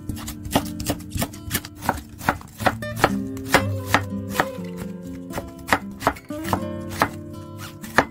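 Kitchen knife chopping on a wooden cutting board, slicing green onion and then onion in sharp knocks about two a second. Background music with held notes plays underneath.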